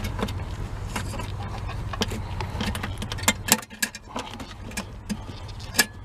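Small metal clicks and scrapes of a headlight bulb's metal retaining clip being worked by hand inside the headlamp housing. Under them runs a low steady rumble that falls away about three and a half seconds in.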